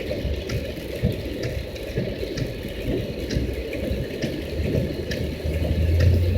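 Steady low rumble of a running motor with a washing, watery noise and a few faint clicks. A low hum grows louder about five and a half seconds in.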